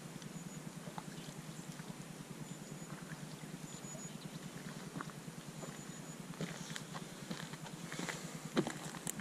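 Boots shuffling and crunching on loose gravel and stones, a cluster of sharp ticks and knocks from about two-thirds of the way in with one louder knock near the end, over a steady low background rumble and a few faint ticks earlier on.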